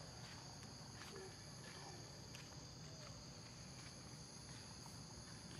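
Faint, steady, high-pitched insect drone in forest, several high tones held unbroken together.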